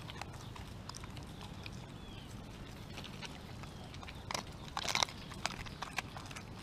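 Dog chewing a raw whole chicken: scattered crunches of bone and cartilage, coming thicker and louder about four to five seconds in.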